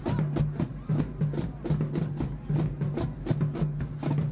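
High school marching band playing: rapid, dense drum strokes over a low bass note that pulses on and off in a steady beat.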